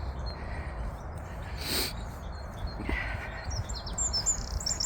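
Small songbirds singing in high, rapid chirps and trills that grow busier over the last second or so, over a low steady rumble.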